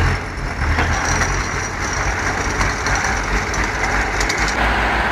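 Heavy vehicle engines running steadily with a deep low rumble, as a TDT-55 tracked skidder tows a ZIL-131 truck.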